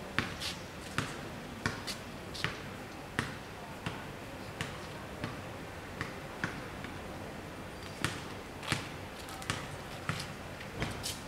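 Level crossing warning bells striking repeatedly, about one strike every three-quarters of a second, each a short sharp ding. The crossing is closed with the barriers down, warning that a train is coming.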